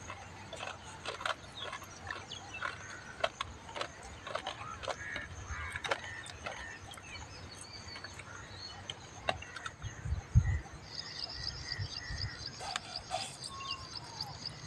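Soft clicks and wet smacking of two people eating slices of ripe snap melon. Birds chirp in the background, and a steady high trill joins about two-thirds of the way in. There is a single low thump about ten seconds in.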